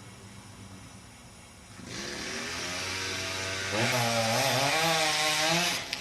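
Chainsaw running. It comes in about two seconds in, grows to full, loud revs with a wavering pitch, and cuts off suddenly just before the end.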